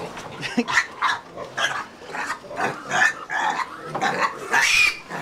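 Feeder piglets squealing in a series of short calls as one is caught and lifted out of the pen, with the loudest, shrillest squeal near the end.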